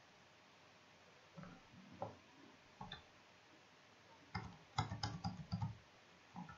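Faint computer keyboard keystrokes: a few separate key clicks, then a quick run of about half a dozen taps near the end.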